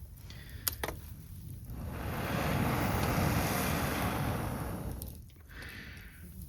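A gust of wind rushing over the microphone, swelling about two seconds in and dying away after about three seconds, with a couple of sharp clicks just before a second in.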